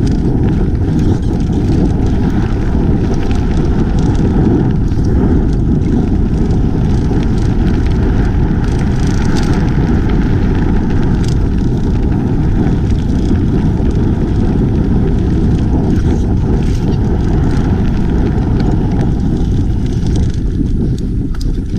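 Heavy wind buffeting on the GoPro Hero 5's built-in microphone during a mountain-bike descent: a loud, steady low rumble, mixed with the bike rolling over the dirt trail. This is the wind noise the Hero 5 picks up when mounted on the Karma Grip gimbal.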